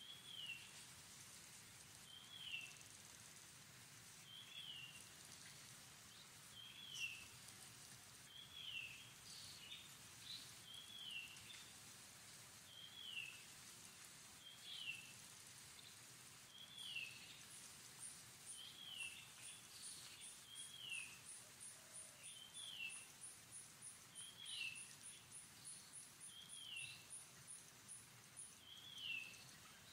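Faint outdoor ambience in which a bird repeats a short, falling chirp every one to two seconds. From just past halfway a fast, very high, pulsing trill joins in for about twelve seconds.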